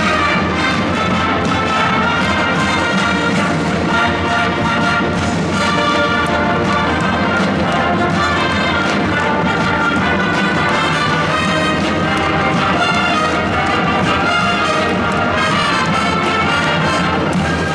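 A large combined wind band playing, with the brass section prominent over a steady, full ensemble.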